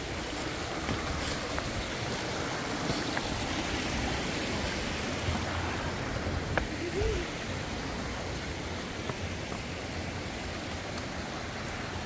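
Shallow rocky river running steadily over stones and small cascades, a continuous rushing of water.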